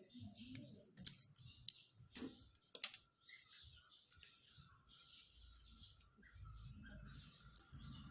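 Irregular sharp clicks and taps amid soft rustling, with a faint steady high tone underneath.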